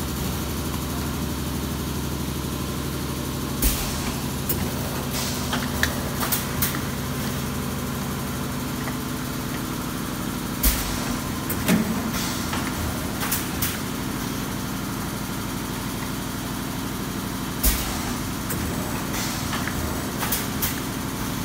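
PET bottle blow moulding machine running: a steady mechanical hum broken by sharp pneumatic clacks and short hisses of air. The loudest of these come about every seven seconds as the machine cycles through its moulding strokes.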